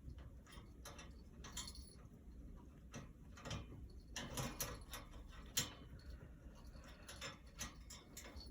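Irregular sharp clicks and ticks, a few to several a second, with one louder click past the middle.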